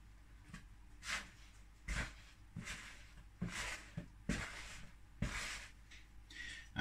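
Hands handling plastic kitchen containers: about eight short, soft rustling and scraping sounds at irregular intervals.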